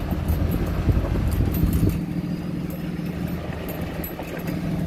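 Dodge Ram 3500 pickup with a turbo Cummins diesel, heard from inside the cab while driving slowly on a bumpy dirt road: steady engine drone with road rumble and short rattling clicks.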